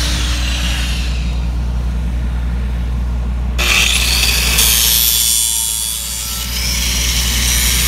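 Angle grinder buffing the bevelled end of a steel pipeline pipe, the abrasive scraping against the metal briefly at the start and again, louder, from about three and a half seconds in. A steady low engine drone runs underneath.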